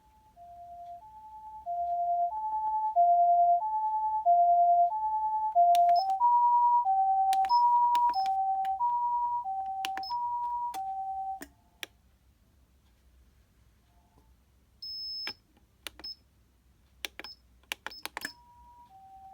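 Osaka Siren OPS-5101V-Q ambulance siren amplifier sounding the Japanese two-tone hi-lo wail, each tone about half a second. It grows louder at first, shifts to a slightly higher pair of tones about six seconds in, and stops near the middle. Short high beeps and sharp clicks come through the second half, including one longer beep, and the two-tone starts again at the very end.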